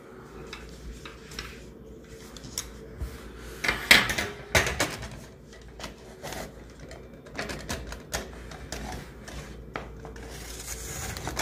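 Scattered clicks, scrapes and knocks from a metal springform cake pan being handled. A knife runs around the pan's rim, and the pan clatters onto a wire cooling rack about four seconds in, the loudest moment. Another click near the end comes as the pan's side clasp is worked.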